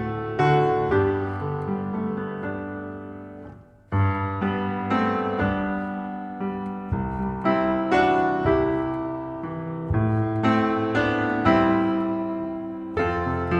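Piano music: gentle notes and chords struck and left to ring and fade, with a brief break about four seconds in before a new chord starts it again.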